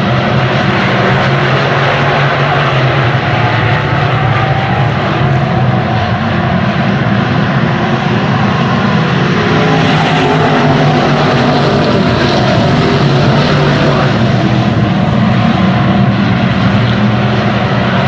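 Stock car engine running loud and steady at speed, a low, even drone with road and wind noise over it.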